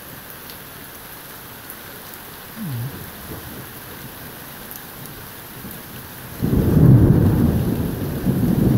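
Steady rain falling during a summer thunderstorm, with a short low sound about two and a half seconds in. About six seconds in, a loud peal of thunder breaks in and rolls on, low and heavy, strongest just after it starts.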